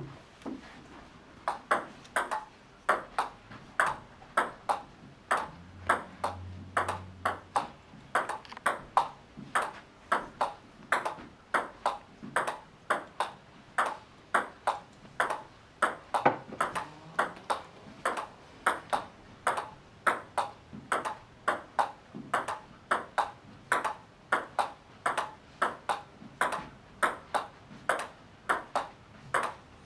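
Table tennis forehand push rally: the ball clicking off the bats and bouncing on the table in a steady, even rhythm of about two to three hits a second.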